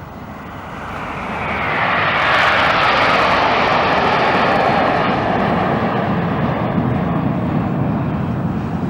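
Formation of BAE Hawk jets flying past: the jet roar builds over about two seconds, then falls in pitch as the aircraft go by and settles into a lower, steady rumble.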